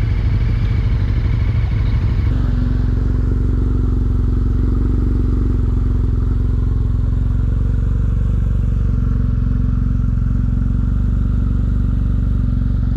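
KTM 1290 Super Duke R's V-twin idling steadily at close range, with other motorcycles idling alongside; the engine note shifts slightly about two seconds in.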